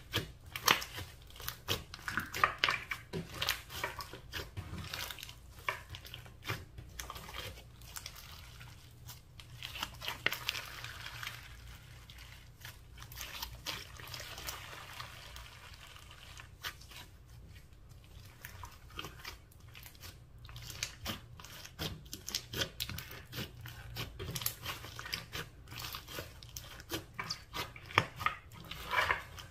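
Hands kneading, squeezing and pressing a large lump of glossy slime mixed with glitter and small beads, giving irregular clicks and pops. The clicks are loudest in the first few seconds and again near the end.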